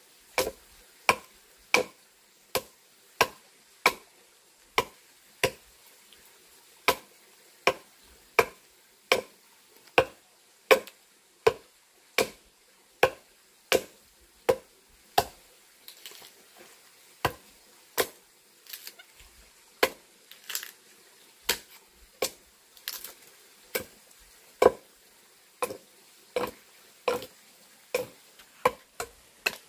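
An axe chopping into a log to hollow it out into a trough, with sharp wooden chops a little more than one a second. A few strikes around the middle are softer and come less evenly.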